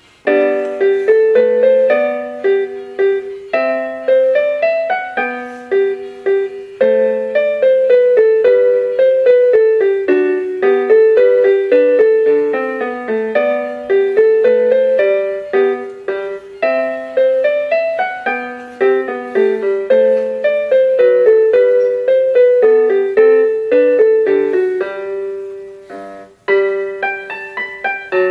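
Casio LK-S250 keyboard playing one of its built-in song-bank pieces in a piano voice: a quick melody over a lower accompaniment, starting abruptly, with a brief break near the end before it carries on.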